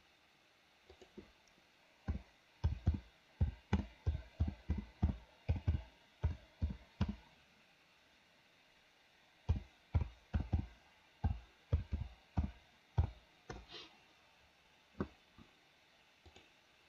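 Typing on a computer keyboard: a quick run of keystrokes, a pause of about two seconds, then a second run, with a few single clicks near the end.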